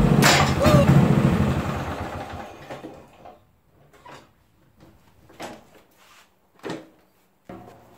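Riding lawn mower engine running, then dying away over the first two to three seconds, followed by scattered light knocks and clicks.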